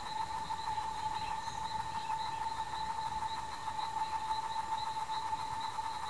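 Steady insect buzzing: one continuous, even-pitched drone with a fast, fine pulsing in it.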